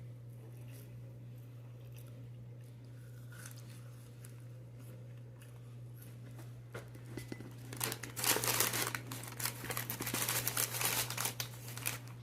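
Close crinkling and crunching while eating seasoned fries from a paper bag, starting about seven seconds in and growing dense and loud, over a steady low hum.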